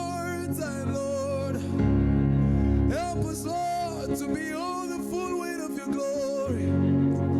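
Slow worship music: a voice singing long, held phrases without clear words over steady sustained instrumental chords, one phrase at the start and a longer one from about three seconds in.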